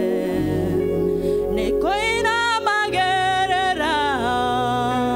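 Women's worship team singing a Kikuyu gospel song, a lead voice holding long notes over sustained instrumental accompaniment. New sung phrases come in about two and three seconds in.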